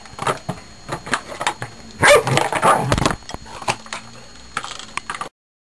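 Dalmatian playing roughly with a plastic drink bottle: the bottle crinkles and clatters in quick clicks and knocks, and the dog growls and barks in a louder burst about two seconds in. The sound cuts off suddenly about five seconds in.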